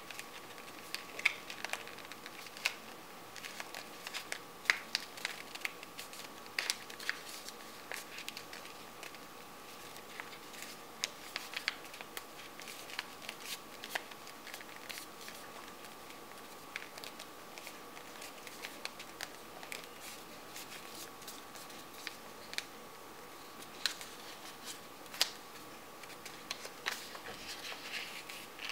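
Stiff coloured paper being folded and tucked by hand: irregular crinkles, rustles and sharp little clicks as the folds are pressed and slid into place, over a faint steady whine.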